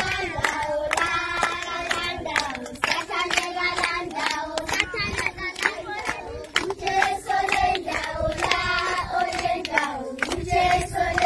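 A group of schoolchildren singing together while clapping their hands in a steady rhythm.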